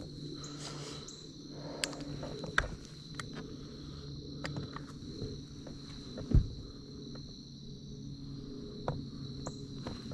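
Crickets trilling steadily at a high pitch, with scattered small clicks and one louder thump about six seconds in.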